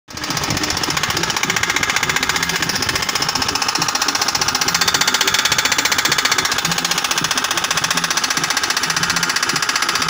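Makita electric demolition hammer (jackhammer) running continuously, its chisel bit hammering into rocky ground with rapid, even blows.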